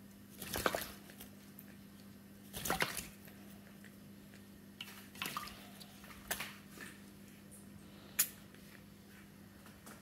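Quaker parrot bathing in a shallow glass dish, splashing water with its head and fluffed wings: two bursts of splashing about half a second and near three seconds in, then smaller splashes and a sharp tap near eight seconds.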